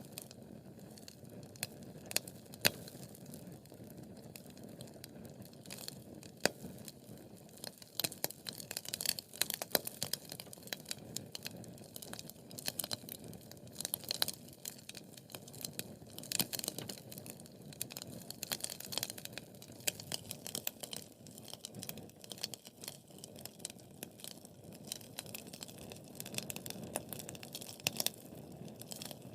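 Wood fire burning in a fireplace: steady low rustle of flames with frequent sharp crackles and pops from the burning logs, busiest through the middle.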